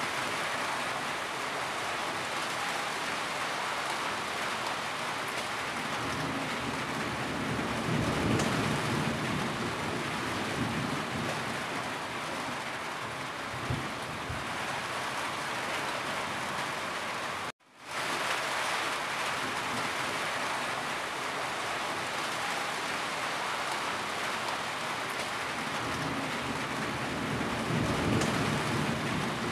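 Steady rain drumming on a corrugated tin roof, with water dripping and streaming off the eave. Low thunder rumbles twice, about eight seconds in and again near the end. A little past halfway the sound cuts out for an instant and fades back in.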